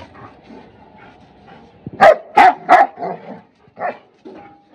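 Pug barking at two larger dogs play-fighting: three loud, sharp barks in quick succession about two seconds in, then a few fainter barks.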